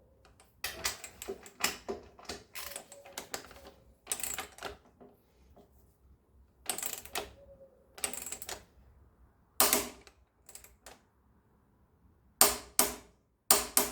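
Torque wrench ratcheting in short bursts of rapid clicks, several seconds apart, as bolts are tightened to their specified torque.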